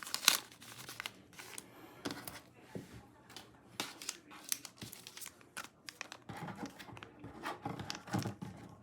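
Album packaging being torn open and crinkled by hand: an irregular run of rips and rustles, with a sharp rip near the start.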